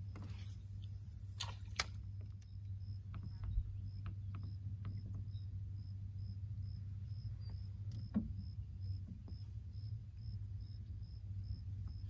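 A small boat's motor running steadily at low speed. Over it, a spinning reel is cranked, its handle ticking faintly about two to three times a second, with a couple of sharp clicks about a second and a half in as the cast is made and the reel engaged.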